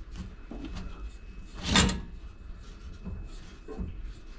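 Rubbing and light knocks of a bucket being held and shifted under a pipe's drain valve, with one loud, brief knock about two seconds in.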